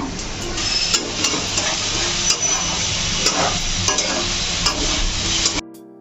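Wai Wai instant noodles sizzling in a frying pan as they are stirred, with irregular scrapes of the spoon against the pan. The sizzle cuts off suddenly near the end, and soft piano music follows.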